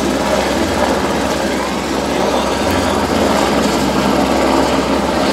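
Helicopter running: a steady, loud rotor and engine noise with a constant low hum.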